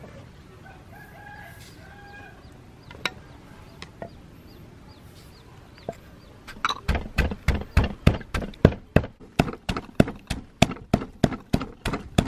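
Wooden pestle pounding garlic, dried chillies and salt in a clay mortar, starting about seven seconds in as an even run of dull strikes, about three a second. Before that, a chicken clucks in the background and there are a couple of light knocks.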